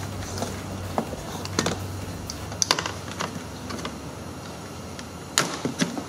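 Plastic door-sill scuff plate being pried up with a plastic trim tool: a series of sharp clicks and snaps as its retaining clips let go, with a pair of clicks about a second in and more near the end.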